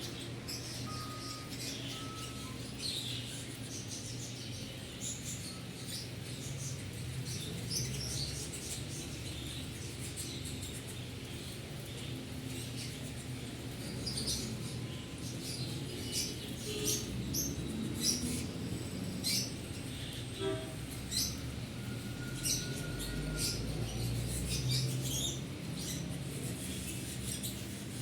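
Pet canaries giving short, high chirps and calls, scattered and becoming busier about halfway through, over a steady low hum.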